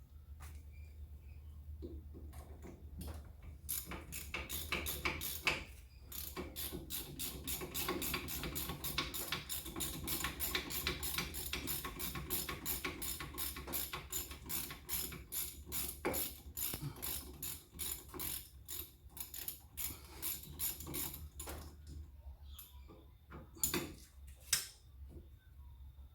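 Hand ratchet clicking rapidly in quick back-and-forth strokes, loosening a fastener while a rear brake wheel cylinder is removed. The clicking stops near the end, followed by two sharper knocks.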